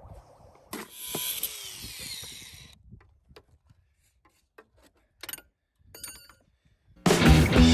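A power tool runs briefly for about two seconds, followed by a few scattered clicks and knocks. Loud rock-style music starts abruptly near the end.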